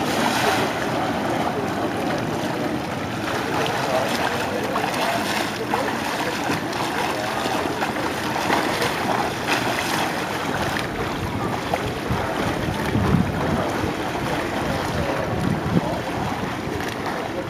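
Pool water splashing as a swimmer pushes off the wall and swims backstroke, arm strokes and kicks churning the surface, with a bigger splash at the start. A steady rush of wind on the microphone runs underneath.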